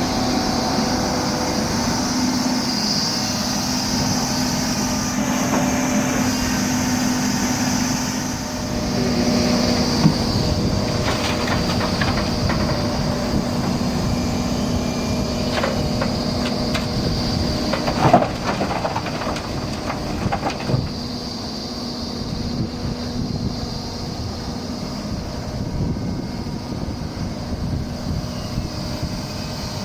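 Doosan 300LC-V excavator's diesel engine running steadily under work, with a high whine over it. A few sharp knocks and clanks come in the middle, the loudest a little past halfway.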